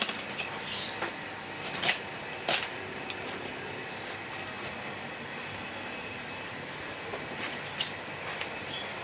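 Knife and hands working a large trevally carcass on a wooden chopping block: a few short, sharp clicks and taps, two close together about two seconds in and a couple more near the end, over steady background noise.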